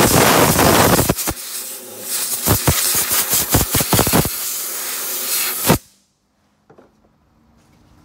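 Compressed-air blow gun with a long extension nozzle blasting air over a scuffed, rusty steel frame crossmember to clear off the dust and corroded flakes. One loud blast of about a second comes first, then a run of shorter blasts, then a steadier blast that cuts off suddenly near six seconds in.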